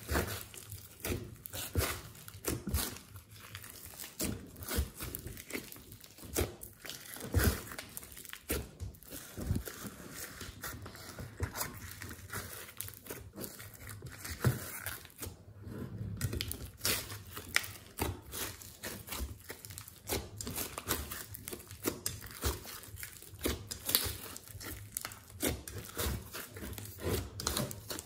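Glossy slime mixed with clay and glitter being kneaded, folded and pressed by hand, giving a continuous run of irregular crackles, clicks and small pops as trapped air breaks in the slime.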